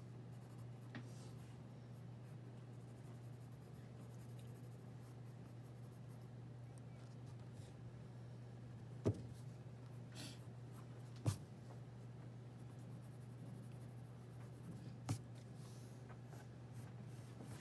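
Graphite pencil scratching and shading on drawing paper, faint, over a steady low hum, with three short sharp taps in the second half.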